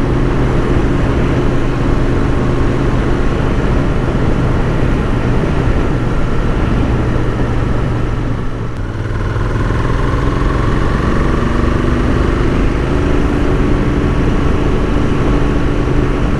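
Royal Enfield Continental GT 650's parallel-twin engine running under way, with wind rush. About halfway through, the engine note dips briefly, then rises slowly as the bike picks up speed again.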